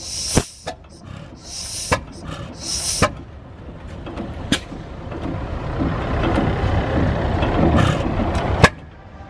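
Economy hit-and-miss stationary gas engine running, firing with single sharp pops at irregular intervals a second or more apart. Short bursts of hiss come in the first few seconds, and a low rumble builds in the last few seconds before a final loud pop.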